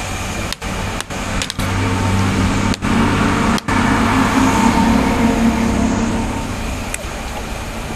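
Low, steady engine hum of a motor vehicle, swelling through the middle and easing off near the end, over a constant background noise.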